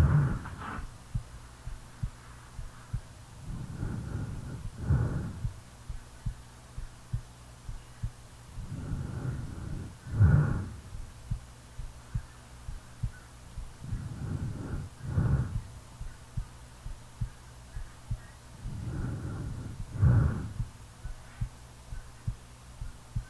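A person's heartbeat thumping steadily, a little faster than once a second, under the slow, heavy breathing of a sleeper. There is one long breath about every five seconds, each rising to a louder peak at its end.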